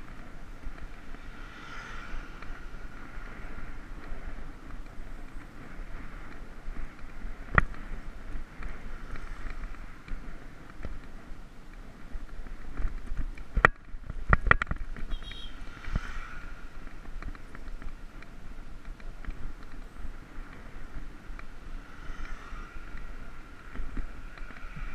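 Wind buffeting the action-camera microphone and road rumble while riding a bicycle along a paved road, with a few sharp knocks and rattles, a cluster of them about halfway through.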